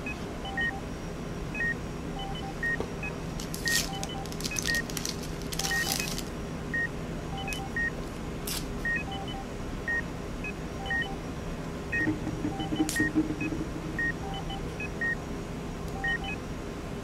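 Electronic hospital-monitor-style beeping: a short high beep about twice a second with a lower tone every second or two, over a steady hum. A few bursts of paper crinkling from bandage wrappers come in around the fourth and sixth seconds.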